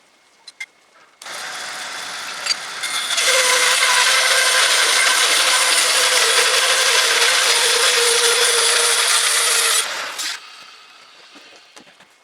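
Electric-motor horizontal bandsaw mill starting suddenly, growing louder about three seconds in, running steadily with a buzzing whine, then shutting off and dying away near the end.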